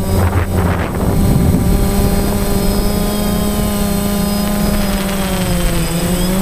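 DJI Phantom quadcopter's motors and propellers whining steadily in flight, heard close up from the camera on board; the pitch sags briefly near the end as the drone manoeuvres.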